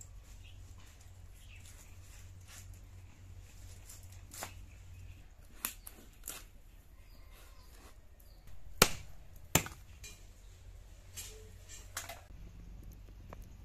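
Fish heads being cut on a boti, a curved blade fixed upright on a wooden base: irregular sharp cracks and clicks as the blade goes through bone and flesh, the two loudest close together a little over halfway through.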